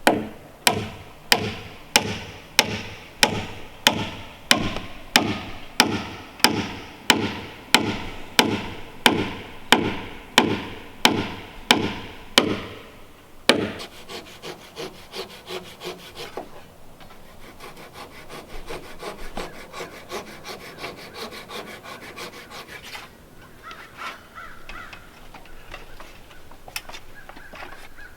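Hand saw cutting through a timber, with strong, even strokes about one every 0.6 s for the first half, then quicker, lighter strokes.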